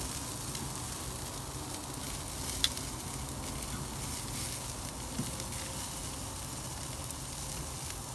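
Chicken drumsticks sizzling on a grill over a burning wood fire: a steady hiss, with one sharp pop about two and a half seconds in.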